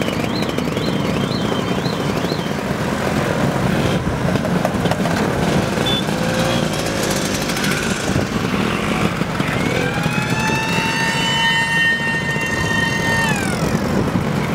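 A stream of Vespa scooters riding past, many small engines running together steadily. A warbling tone sounds in the first couple of seconds. A long horn note, gliding up as it starts and down as it stops, is held for about three and a half seconds near the end.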